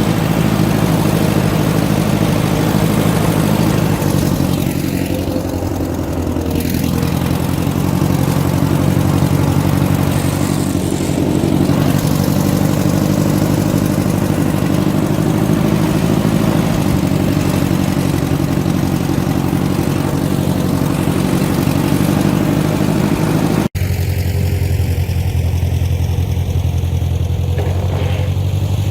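Massey Ferguson 50 tractor engine running steadily while blading snow. The sound breaks off for a split second about three-quarters of the way through, then carries on with a deeper, steadier note.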